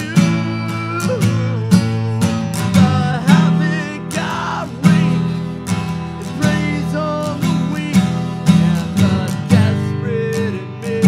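A man singing with his own strummed acoustic guitar, the chords struck in a steady rhythm.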